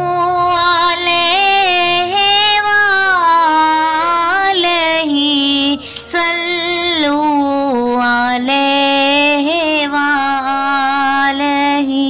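A naat, an Islamic devotional song, sung by a single high voice. The melody winds up and down in ornamented glides with a wavering vibrato, broken by a short pause about six seconds in.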